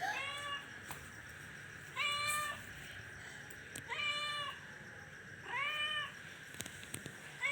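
Domestic cat meowing repeatedly: five short, even meows about two seconds apart.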